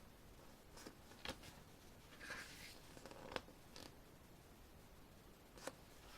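Faint paper handling as photo book pages are turned: a soft swish about two seconds in and a few light clicks and taps.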